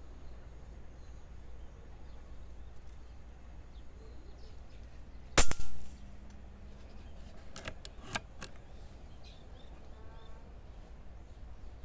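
PCP air rifle firing one shot about five and a half seconds in: a single sharp report with a short tail. A few light clicks follow a couple of seconds later.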